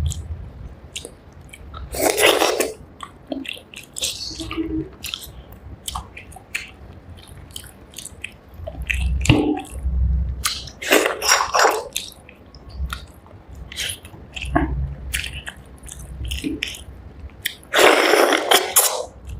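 Close-miked chewing and biting of rice and spicy fish curry: wet mouth clicks and smacking, with three louder breathy rushes about two seconds in, around eleven seconds, and near the end.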